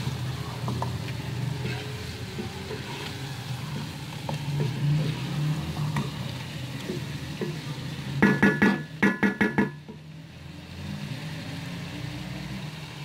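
Chicken, onions and spices sizzling as they fry in a steel pot with no water added, stirred and scraped with a wooden spatula. About eight seconds in comes a quick run of about six ringing knocks, then a quieter moment of sizzling.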